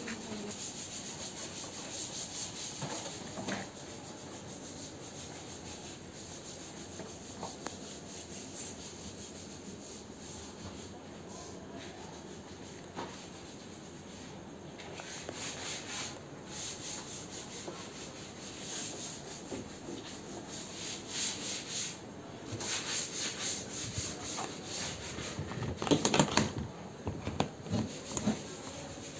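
Continuous rubbing and scuffing noise, with a run of louder clicks and knocks near the end as the steel bolt latch on the fibreglass cabin door is handled.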